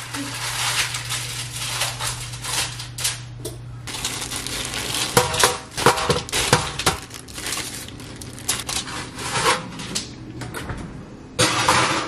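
Plastic wrapping and aluminium foil crinkling and rustling, with sharp clinks and knocks from a metal baking pan, as bread is unwrapped onto a foil-lined tray. A steady low hum underneath stops near the end.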